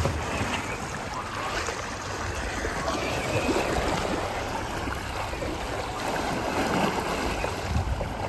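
Water rushing and splashing steadily along the hull of a boat under way, churned up by a giant bluefin tuna being towed alongside to swim it.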